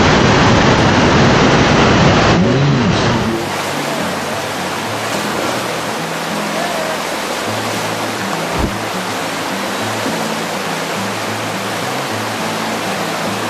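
Steady roar of rushing whitewater from a falls and fast river, louder for the first three seconds, with background music underneath.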